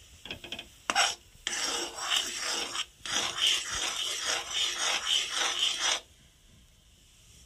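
Metal spoon scraping and stirring melting jaggery in a metal kadhai as it is cooked down to a syrup. A few short strokes come first, then steady scraping for about four and a half seconds with a brief break near the middle, and it stops about six seconds in.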